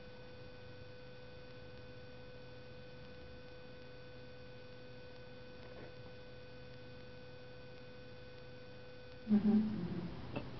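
A steady faint electrical hum with a thin high whine over it. About nine seconds in, a sleeping toy poodle gives a sudden, short burst of muffled low woofs, the kind a dog makes while dreaming.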